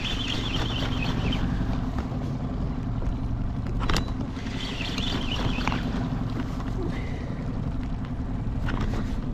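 Steady low rumble of wind and water around a small boat, with a fishing reel being wound in two short spells and a single sharp knock about four seconds in.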